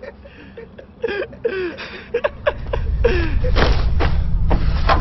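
Brief men's voices, then a scuffle: heavy thuds of a body being thrown onto wooden boards, two sharp impacts in the second half, over a low rumble that swells up from about three seconds in.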